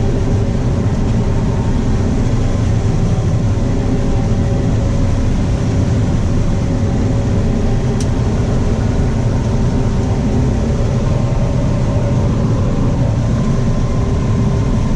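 Combine harvester running steadily while harvesting corn, heard from inside the cab: a constant drone of engine and threshing machinery with steady hums. A single faint click about eight seconds in.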